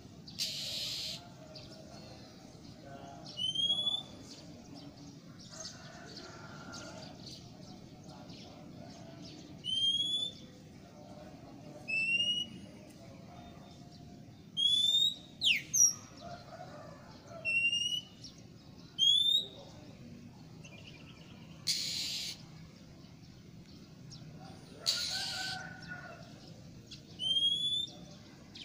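Female oriental magpie-robin (kacer) giving its typical call, the one used to draw in males: a short whistled note sweeping upward, repeated every few seconds. A few short harsh, hissing bursts come in between.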